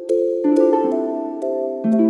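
Soft instrumental background music: held keyboard-like notes that change every half second or so over a light ticking beat, about two ticks a second.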